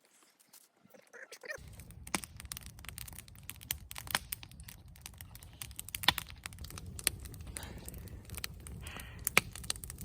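Campfire crackling, with irregular sharp pops over a steady low rumble that starts suddenly about a second and a half in.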